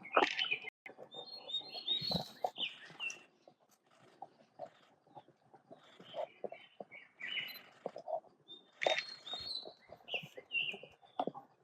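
Forest birds chirping in short, irregular calls, with scattered small ticks and knocks among them.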